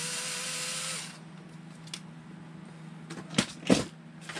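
Cordless power driver running for about a second with a steady whir, then stopping. A small click follows, and then two sharp knocks a little after three seconds in.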